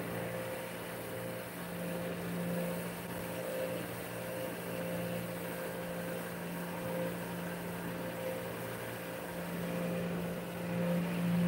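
Steady low mechanical hum of a small motor, like a fan, over a faint even hiss.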